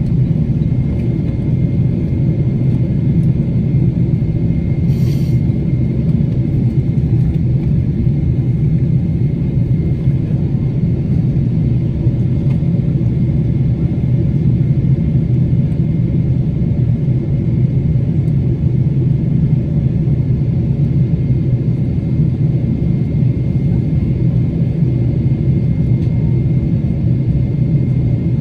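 Steady low rumble of a Boeing 777-300ER in flight, heard inside the cabin: its GE90-115B turbofan engines and the rush of air over the fuselage, with a faint steady high whine.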